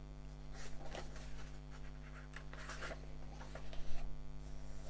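Pages of a manga volume being turned by hand: paper rustling and sliding in several strokes, with a louder flip of a page near the end. A steady electrical hum runs underneath.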